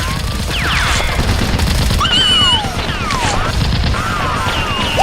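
Rapid, continuous gunfire, with high whistling tones over it that fall in pitch.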